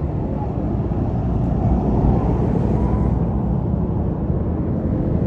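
A bus's diesel engine running as it passes close by: a steady low sound that grows slightly louder about two seconds in.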